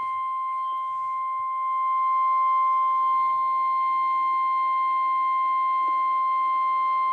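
NOAA Weather Radio 1050 Hz warning alarm tone: one long, steady, unbroken beep heralding a new severe thunderstorm warning, heard off the air through a weather radio receiver.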